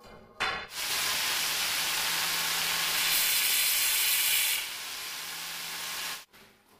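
Electric angle grinder cutting a strip of black granite: a loud, harsh, steady hiss of the blade in the stone with a low motor hum under it, louder for a second or so in the middle, dropping near the end, then cutting off suddenly.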